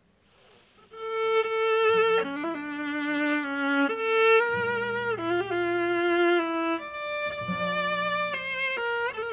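Bowed string instruments playing live together, coming in about a second in after near quiet: long held notes in several voices at once, with sliding changes of pitch.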